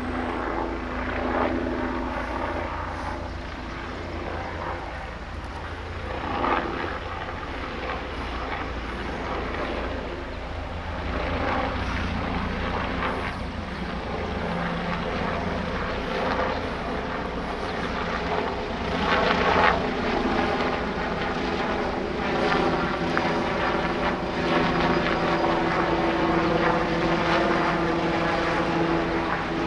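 Sheriff's helicopter flying, a steady rotor and engine drone that grows louder over the second half.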